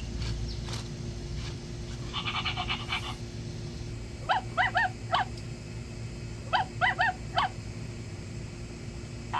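Robot dog toy's speaker playing electronic dog sounds: a short pulsing tone about two seconds in, then two runs of four quick yapping barks, about four and a half and seven seconds in.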